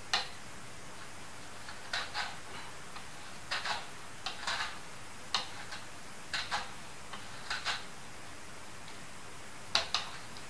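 A plantain is drawn repeatedly across the blade of a handheld mandoline slicer, each pass a short, crisp scraping cut. There are a dozen or so strokes, mostly in quick pairs about a second apart, with a gap of about two seconds before a final pair near the end.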